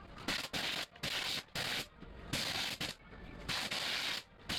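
Short bursts of compressed air hissing, about two a second with uneven gaps, as air jets blast the outer skins off white leeks in a peeling machine.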